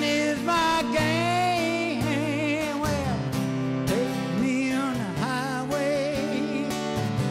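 A man singing long, wavering notes over a strummed acoustic guitar, in a country style.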